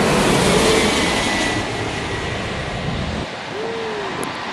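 Jet airliner passing low overhead on its landing approach: a loud roar of engine noise with a faint high whine falling slowly about a second in. The low rumble drops away about three seconds in.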